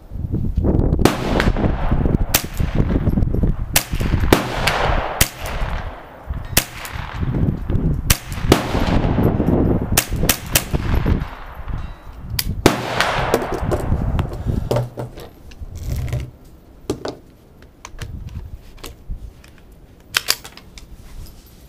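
Ruger 10/22 .22 LR semi-automatic carbine firing a string of shots, sharp cracks at uneven intervals, often one to two seconds apart and sometimes two in quick succession. A rough low rumble fills the gaps for the first fifteen seconds or so, and the shots thin out after that.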